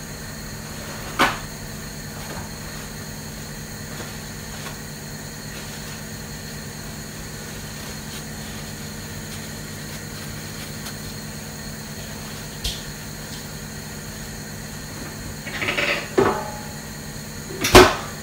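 Occasional knocks and clatter of things being handled in a kitchen, over a steady low hum: a single knock about a second in, a short rattle near the end, and the loudest knock just before it ends.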